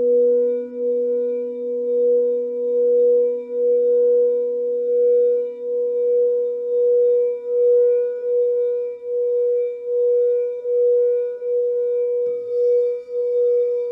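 Crystal singing bowls ringing: one loud sustained tone whose level pulses roughly once or twice a second, over a lower tone that fades over the first few seconds. Near the end there is a soft knock, after which a faint higher ringing joins in.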